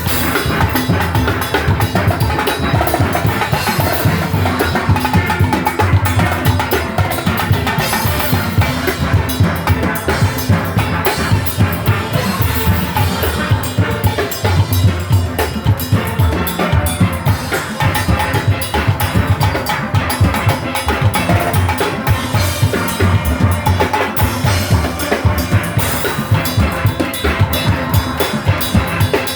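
A steel orchestra playing: massed steel pans carrying the music over a drum kit and percussion keeping a steady, driving beat.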